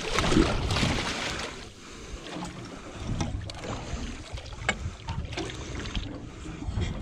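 Hooked shark thrashing its tail at the surface beside the boat, a loud splash in the first second or so. It then settles to quieter water and wind noise with a few light knocks.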